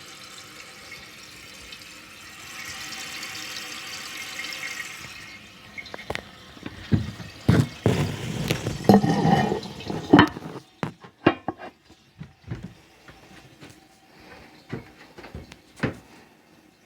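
1981 American Standard Cadet toilet: a steady hiss of running water, then a gurgling flush about seven seconds in, tapering off into scattered gurgles and drips.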